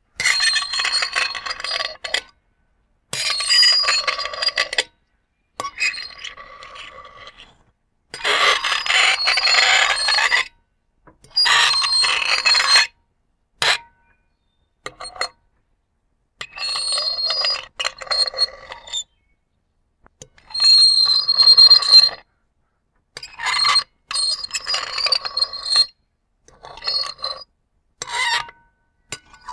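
Metal fork scratched across a ceramic plate, producing squealing, ringing scrapes. About a dozen strokes of one to three seconds each, separated by short silences, some shorter and fainter near the end.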